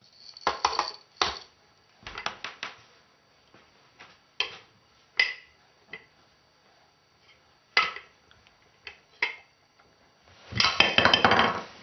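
Plastic Duplo bricks knocking and clicking together in separate knocks spaced a second or more apart, with a louder, busier stretch of noise near the end.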